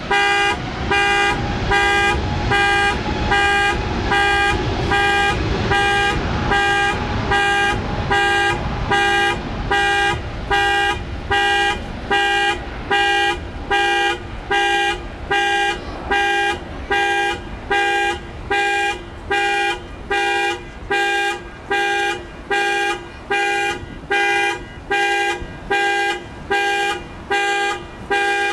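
An electronic alarm beeping steadily, a little more than once a second, with the same pitched tone on each beep.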